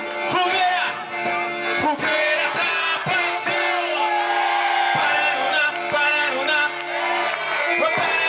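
Band music playing loud, with a singer's voice over held instrument notes and regular drum hits.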